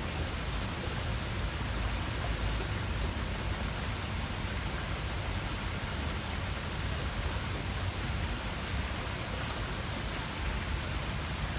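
Steady hiss with a low rumble underneath, even throughout, with no distinct sound standing out.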